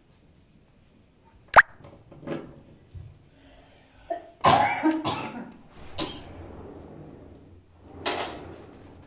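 Hand work on sink cabinet fittings: a sharp click about one and a half seconds in as a part goes into place, then several short bursts of knocking and rustling handling noise, the biggest about four and a half seconds in and another near the end.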